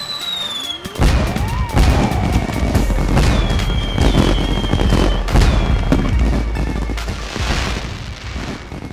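Intro music with a heavy bass, mixed with firework sound effects: repeated booms and bangs, a tone rising about a second in, and whistles that drop in pitch and then hold.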